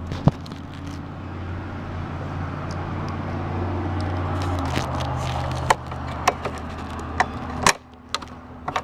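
Clicks and light knocks of sewing-machine parts being handled as the bobbin and its case are fitted, over a steady low hum that cuts off suddenly with a click near the end.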